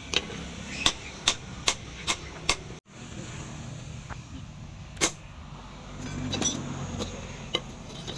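Hand hammer ringing on red-hot leaf-spring steel on a steel post anvil, a quick run of about six strikes in the first three seconds. After a sudden break come a few single heavier blows on a handled punch held against the hot axe head, over a steady low hum.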